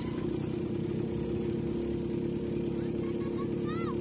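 Small vehicle engine idling steadily, with a fast, even firing rhythm. Near the end there is a brief high-pitched chirp that rises and falls.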